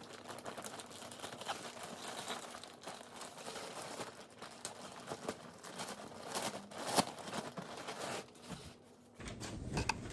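Packaging crinkling and tearing as a mail-order package is opened by hand, with sharp crackles and a loud snap about seven seconds in. Near the end it gives way abruptly to a steady low hum.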